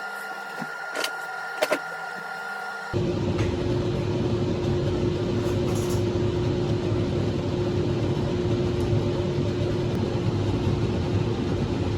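Two sharp clicks, then from about three seconds in a small motor humming steadily with one low, even tone, like a running kitchen appliance.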